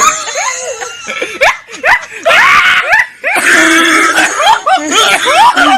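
Several people shrieking and laughing loudly, their voices overlapping and sliding up and down in pitch.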